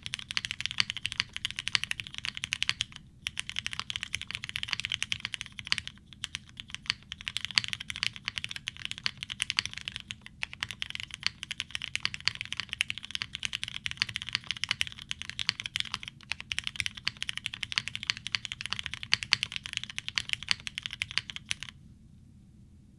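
Fast continuous typing on a TGR Jane V2 ME mechanical keyboard with broken-in, lubed and filmed linear Cherry MX Black switches on 62 g springs, in a POM plate, O-ring mounted, with GMK keycaps. There are a few short pauses, and the typing stops near the end.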